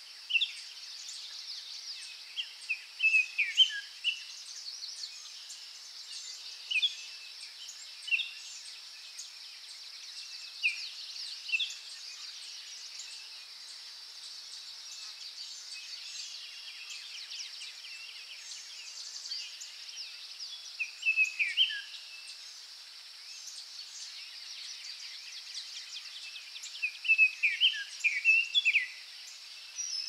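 Forest ambience: a steady high insect chorus with short bird chirps and calls scattered over it. The calls come in small bursts a few seconds in, around twenty seconds in and near the end, some as quick descending phrases.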